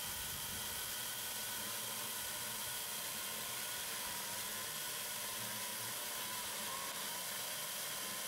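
Makita 36-volt cordless chainsaw cutting through a stack of softwood 4x4s under load, a steady whine over a hiss that holds without a stall.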